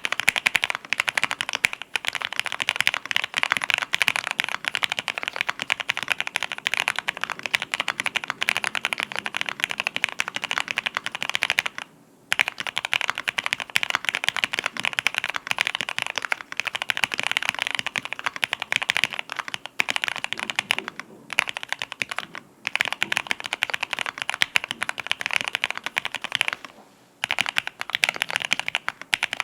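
Fast continuous typing on a mechanical keyboard with lubed TTC Golden Red linear switches and PBT keycaps on an aluminium plate, a dense run of key strikes broken by a few short pauses.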